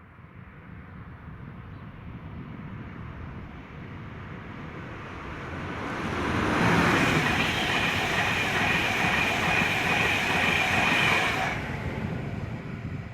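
A train approaching and passing close by. Its wheels run on the rails with a steady high ring for about five seconds, and the noise drops suddenly as the end of the train goes by.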